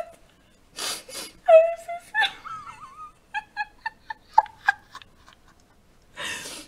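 A woman laughing hard behind her hands. She gasps for breath twice, lets out high squeaky cries, then a quick run of short laughing bursts, with another gasping breath near the end.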